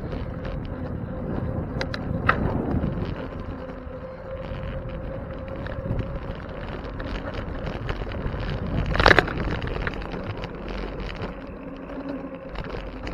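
Bicycle riding over city pavement: steady rumble of wind on the microphone and tyres on the road, with small rattles and a faint steady hum. About nine seconds in comes one sharp clatter, the loudest sound here, typical of the bike jolting over a bump.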